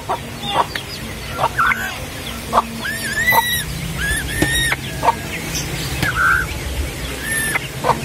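Hungry month-old spotted dove fledglings begging for food while being hand-fed, with a string of short, high, arching calls and sharp clicks. A steady low hum runs underneath.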